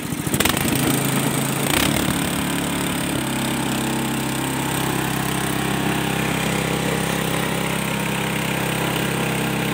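Gambino GX200-type 6.5 hp single-cylinder OHV gasoline engine running steadily. A brief knock about two seconds in is followed by an even run.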